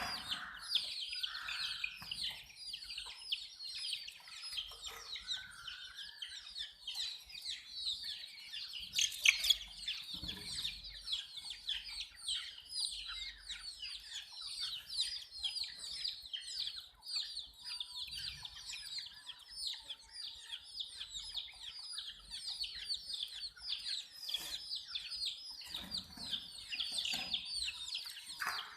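A brood of baby chicks peeping: many short, high, falling chirps overlapping in a continuous chorus.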